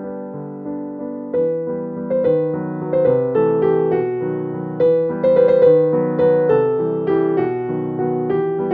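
Background piano music: a slow melody of struck notes, each fading away.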